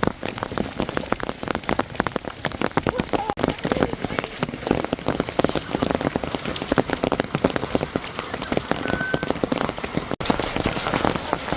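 Rain and hailstones striking a surface in a dense, rapid patter of many small impacts.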